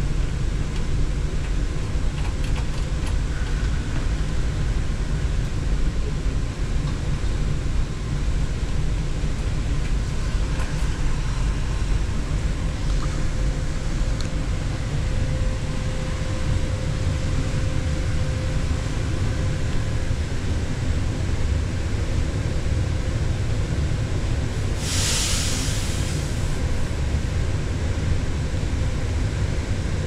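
Steady low drone of running machinery in a ship's machinery space, with one brief hiss about 25 seconds in.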